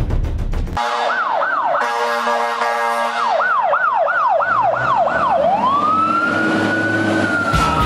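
Fire engine's electronic siren in a fast yelp, rising and falling about twice a second, that switches a little past halfway to a slow wail rising to a held high tone. Music cuts out just before the siren starts and comes back near the end.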